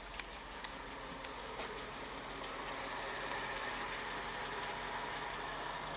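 Mercedes-Benz E55 AMG's supercharged 5.4-litre V8 running near idle, with a few sharp ticks in the first two seconds, then the engine sound rising a little and holding under light throttle. The ticking is the 'tuck tuck tuck' noise the owner is trying to trace.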